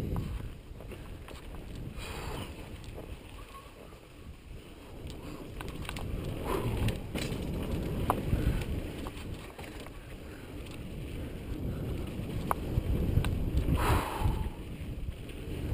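Mountain bike riding fast down a rough dirt trail, heard through an action camera: a steady low rumble of wind buffeting and trail chatter, with scattered clicks and knocks as the bike jolts over bumps, and a louder rush near the end.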